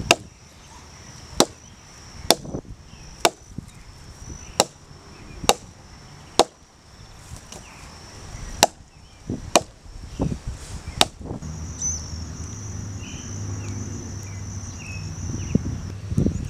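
Hatchet chopping into a wooden log: about ten sharp strikes, roughly one a second. The chopping stops about eleven seconds in.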